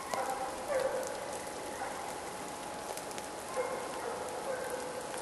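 Steady patter and hiss of light rain, with many tiny scattered drops.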